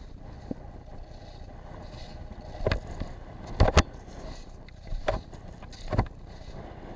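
Skis running over packed snow through moguls: a steady hiss of snow and air, broken by several sharp scraping thuds as the skis hit and edge through the bumps.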